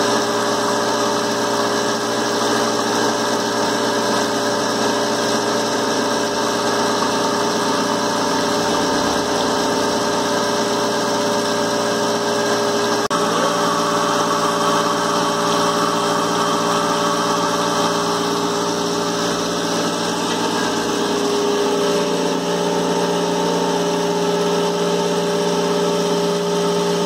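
Tramp oil separator running steadily: its centrifuge spins at around 10,000 RPM while the suction motor draws coolant. It makes a continuous machine hum with several steady tones, whose mix shifts slightly about halfway through and again later on.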